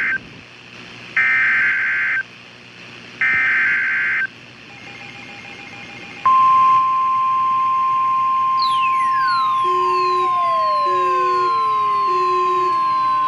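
Weather radio Emergency Alert System alert: the buzzy data bursts of a SAME header sound three times, each about a second long. About six seconds in, a steady single-pitch 1050 Hz warning alarm tone starts and holds. A couple of seconds later it is joined by repeated falling siren-like sweeps and short beeps from another radio's alert.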